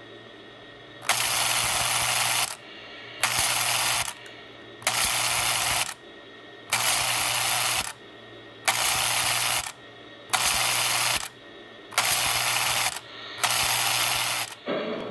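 Lionel 3472 milk car's electrically operated unloading mechanism buzzing loudly in eight short bursts, each about a second long, each time the car is energised to push a milk can out of its door onto the platform.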